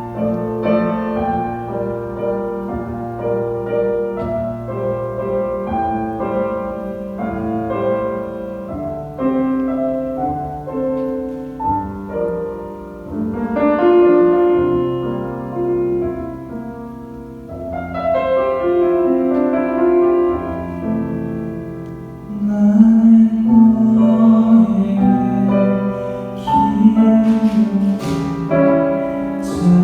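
Solo piano playing a slow ballad passage with sustained chords. In the last several seconds it swells louder and a male voice sings over it.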